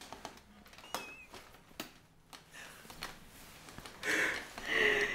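A woman laughing quietly, mostly breath, with a louder, breathy burst of laughter near the end.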